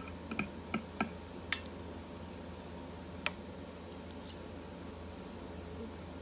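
A few light clicks and clinks of an eating utensil against a bowl in the first second and a half, and one more about three seconds in, over a steady low background hum.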